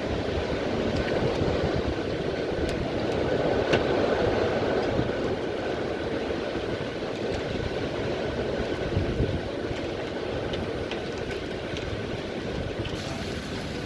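Severe thunderstorm wind and rain: a steady rushing noise that swells a few seconds in and eases later, with scattered sharp ticks.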